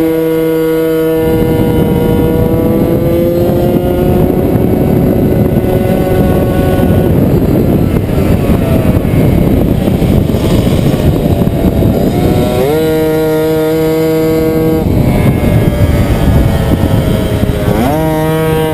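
Tuned 70cc two-stroke Puch Maxi moped engine running flat out at high revs, heard from the bike with a heavy rushing wind noise over it. The engine note climbs sharply about twelve seconds in and again near the end, as it accelerates.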